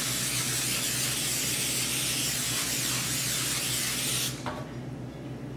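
Aerosol cooking spray hissing steadily as it coats a metal baking sheet, stopping abruptly about four seconds in.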